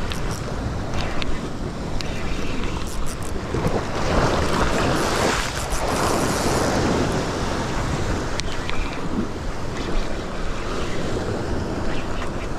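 Ocean surf washing over a rock ledge, with wind buffeting the microphone; a wave surges louder about four seconds in and washes back out by about seven seconds.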